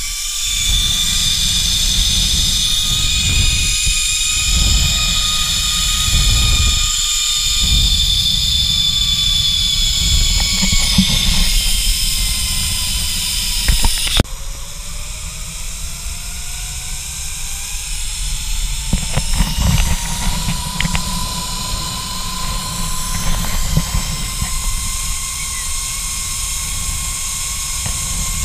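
Zip-line trolley pulleys whining along the steel cable, with wind rushing over the microphone. The whine holds steady at first; after a sudden cut about halfway through it rises in pitch as the trolley gathers speed.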